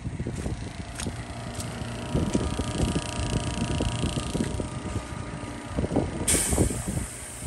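Coin-operated air machine's compressor running with a steady hum. A sudden hiss of air starts about six seconds in as the hose chuck is put on the tire valve.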